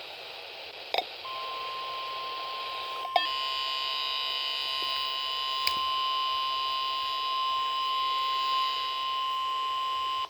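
NOAA Weather Radio's 1050 Hz warning alarm tone sounding over a weather radio receiver: one steady, unbroken tone for about nine seconds that then cuts off abruptly. This is the weekly test of the alarm. About two seconds after the tone starts, a steadier, buzzier layer of many pitches joins it, and a few sharp clicks are heard.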